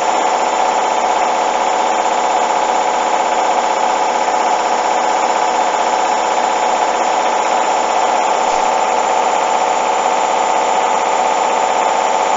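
Hoover front-loading washing machine on a fast spin: a steady, unbroken motor and drum whine with no change in speed.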